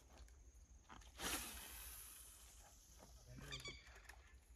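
A spoon lure cast on a spinning rod: a sudden hiss about a second in, fading over a second or so as the line pays out. Near the end comes a brief animal call.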